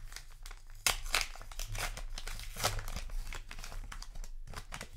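Foil booster-pack wrapper of trading cards being torn open and crinkled: a dense run of sharp crackles, the loudest about a second in.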